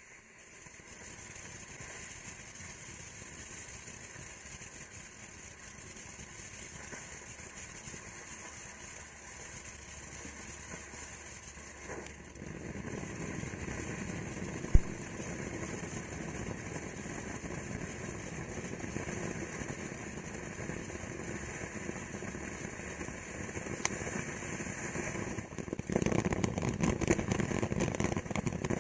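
Bright Star Watermelon Ninja fountain firework spraying sparks with a steady hiss that starts suddenly. It changes effect about twelve seconds in, with one sharp pop a few seconds later, and near the end grows louder with rapid crackling.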